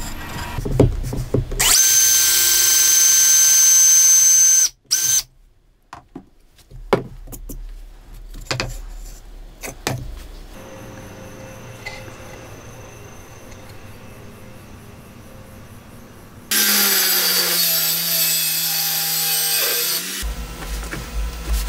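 Makita cordless drill driver running steadily with a high whine for about three seconds as its bit bores into plywood, then cutting off sharply, followed by scattered knocks and clicks of wood being handled. Near the end another power tool runs for about three and a half seconds, its low pitch sinking slightly.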